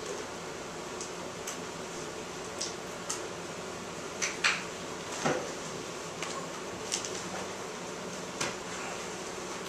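Classroom room tone: a steady ventilation hum, with scattered light taps and scrapes from a pencil writing on paper at a desk.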